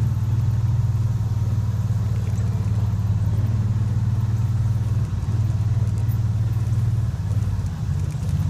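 Off-road vehicle engine running steadily at low speed while driving along dry, rutted grass track, easing off briefly near the end.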